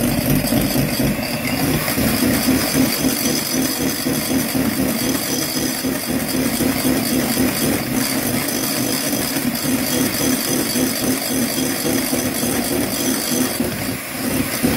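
Electric hand whisk running steadily in a mixing bowl, beating caster sugar into stiffly whipped egg whites as the meringue turns glossy. The level dips briefly near the end.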